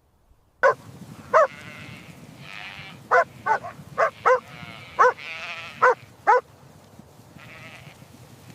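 Sheep bleating: a quick run of short calls, with a few longer wavering bleats among them, starting about half a second in.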